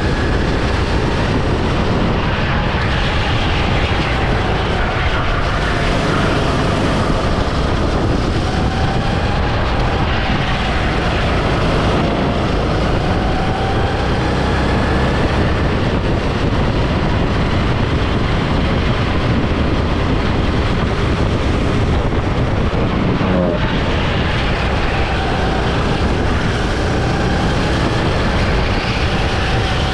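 Go-kart engine running flat out, its pitch rising and falling with the throttle through the corners, under a steady rush of wind and road noise at speed. Other karts run close by.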